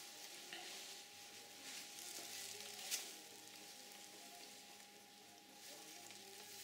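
Faint scratchy swishes of a bristle brush stroking oil paint across stretched canvas, swelling and fading with each stroke, with one sharp click about three seconds in and a thin steady hum.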